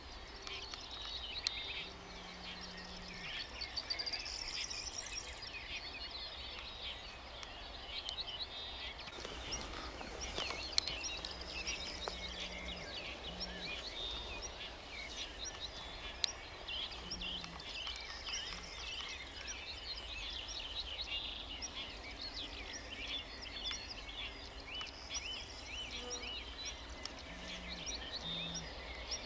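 Wild songbirds singing together, many short chirps and trills overlapping throughout, over a faint steady low rumble.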